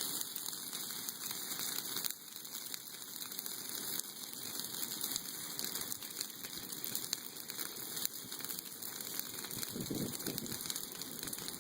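Bonfire of dry pruned tree branches burning, a steady dense crackling and hissing of many small pops.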